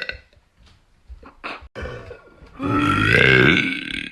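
A person burping: the tail of one burp at the start, then after a short pause with a couple of small clicks, a long, loud, drawn-out burp about two and a half seconds in, lasting over a second.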